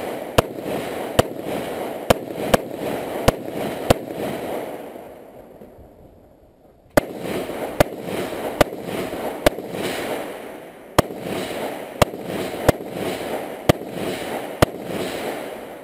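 Rifle shots fired in two strings, about one crack a second, each followed by a long echo. There is a pause of about three seconds between the strings as the shooter changes position.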